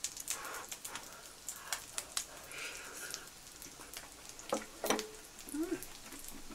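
Butter sizzling in a frying pan under French toast, an uneven patter of small crackles and pops over a light hiss, with a few louder pops about two-thirds of the way in.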